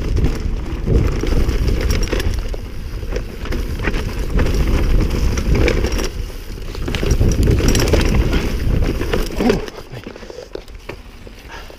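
Mountain bike riding fast down a dirt trail: wind buffeting the microphone, with the clatter and rattle of the bike and tyres over roots and bumps. The sound drops sharply about nine and a half seconds in and stays quieter to the close.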